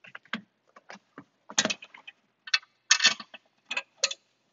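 Small metal bolts, washers and nuts clinking and clicking as they are handled and fitted through the plastic wall of a storage tote: a run of irregular short clinks, louder and closer together in the second half.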